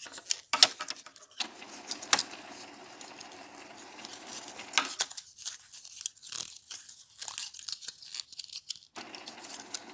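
Packaging of an electric eyebrow styler being torn and crinkled open by hand, with plastic rustling and a run of sharp clicks and snaps. The package is hard to get open.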